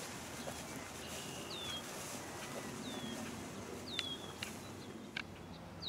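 A bird calling repeatedly: short high notes that each slide downward, about four over a few seconds, over a steady outdoor hiss. A couple of faint clicks come near the middle.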